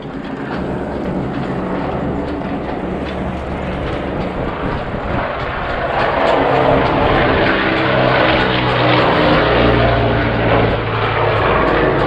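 Propeller-driven water-scooping firefighting aircraft flying overhead, its engines giving a steady droning hum that grows louder about halfway through as it passes close.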